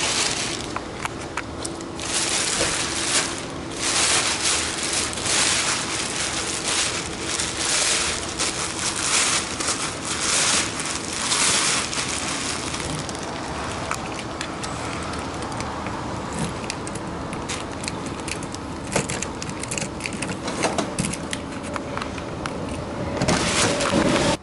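Synthetic car cover being dragged off a car, its thin fabric rustling and crinkling in a run of long swishes, then scattered clicks and knocks in the second half.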